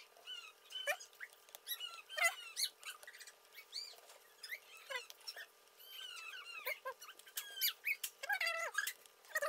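Small animals squeaking and chirping: many short, high-pitched calls that glide up and down in pitch, several a second.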